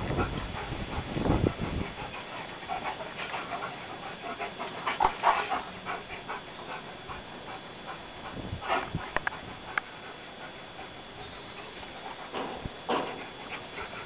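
Two male German Shepherds panting as they move around each other, with irregular short breaths and a few sharp clicks and scuffs in between.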